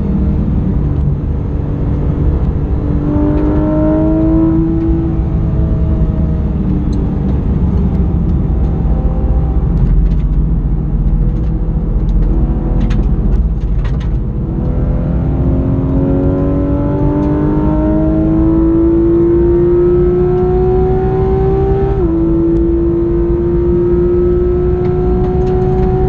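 Porsche 911 GT3 RS's 4.0-litre flat-six heard from inside the cabin on track, over heavy road and wind rumble. The engine note climbs under acceleration, eases back in the middle with a few sharp clicks, then climbs again for a long stretch. Near the end a PDK upshift drops the pitch slightly before it rises once more.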